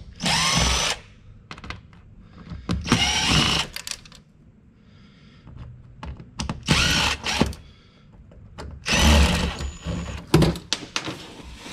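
Cordless drill backing screws out of a stainless hinge, in four short runs of a second or less with small clicks and handling between them.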